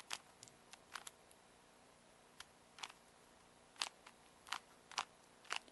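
Rubik's Cube being twisted by hand: a run of short, sharp plastic clicks as its layers turn, about ten at uneven intervals.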